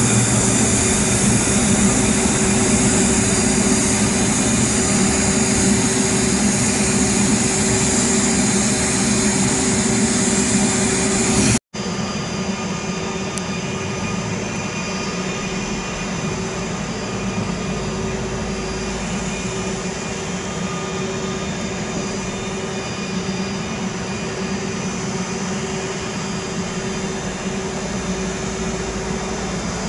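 Twin turboprop engines of a Beech King Air 250 running steadily. About twelve seconds in, the sound drops out for an instant and is replaced by the slightly quieter, steady drone of a De Havilland Canada Dash 8-200's two turboprops on approach with the landing gear down.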